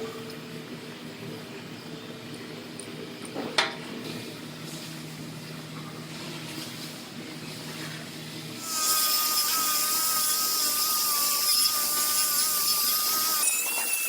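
A high-speed body-shop power tool starts about two-thirds of the way in with a loud hiss and a wavering high whine, its pitch jumping higher near the end. Before it starts, a steady low hum and a single sharp click.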